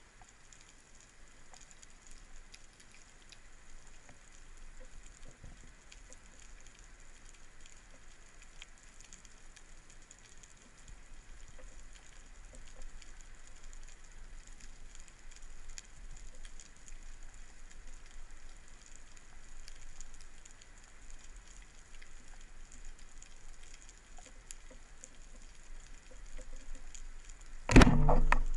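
Underwater ambience picked up by a diver's camera: a steady faint crackle of scattered clicks, typical of snapping shrimp on a shallow reef, over a low rumble. Near the end there is one sudden loud knock lasting under a second.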